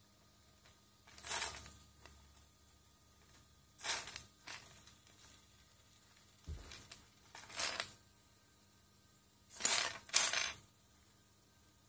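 Loose plastic Lego bricks clattering and shifting under the feet of a servo-driven four-legged walking robot, a short rattle with each step, every one to three seconds.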